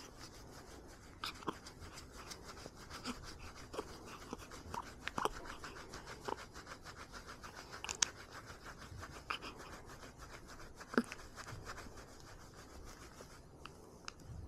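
Soft, rhythmic rubbing and patting on a baby's back to bring up a burp, in a quick, even beat of scratchy strokes close to the microphone, with a few louder clicks in between.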